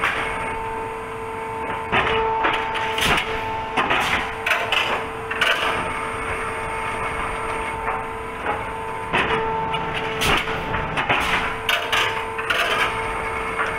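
Olimpia Chiodatrici T30 pallet nailing machine running: a steady two-tone hum under irregular sharp knocks and clatter, often a second or less apart.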